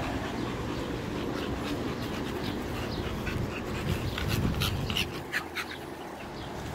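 A micro bully dog panting, quick short breaths at several a second, thickest about two-thirds of the way in, over a steady low rumble. The dog is panting to cool off in the heat.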